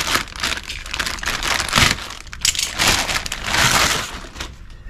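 Thin clear plastic bag crinkling and rustling as hands pull it open around a new brake disc, in irregular surges, loudest about two seconds and about four seconds in.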